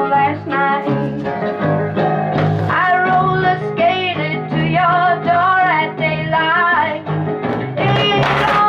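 A song with a singer and guitar playing through an old Buick car-radio speaker under test.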